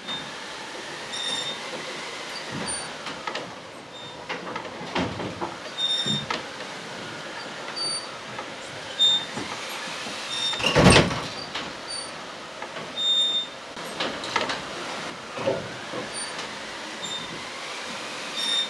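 Creaking and squealing with slow rising and falling pitch, brief high squeaks every second or two, and scattered knocks. The loudest event is a heavy thump about eleven seconds in.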